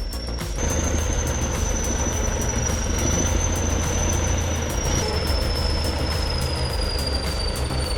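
Old T-130 crawler bulldozer's diesel engine running steadily after repairs, a dense low rumble with a thin high whine above it that shifts pitch about five seconds in and then slowly falls.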